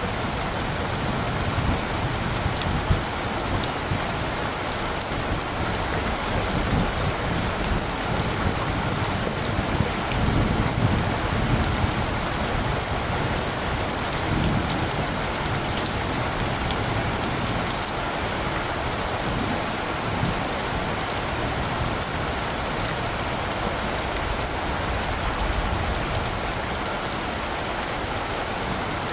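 Steady rain falling, with many close drops pattering. Low rumbles of thunder swell briefly about ten and fourteen seconds in.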